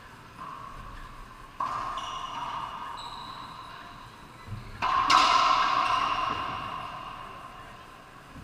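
Racquetball rally: sharp hits of the ball off racquets and the court walls, the two loudest about a second and a half in and about five seconds in, each ringing on for a few seconds in the enclosed court.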